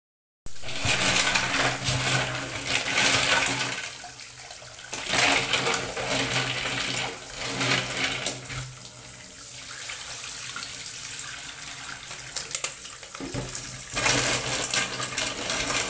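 Tap water running into a metal basin of freshwater snails in a stainless steel sink, with the snail shells clattering as hands stir and rub them clean.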